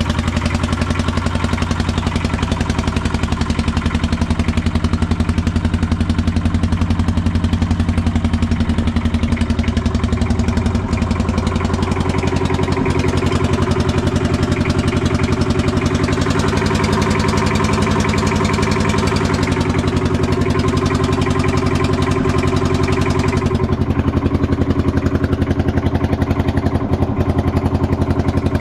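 Bobcat 632 skid steer engine running steadily at a constant speed, with small shifts in its tone along the way and a duller sound near the end.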